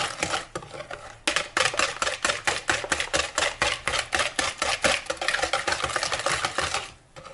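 Hand whisk beating an egg, sugar and melted-butter mixture in a bowl, with quick, even strokes clicking against the bowl. It pauses briefly about a second in and stops near the end.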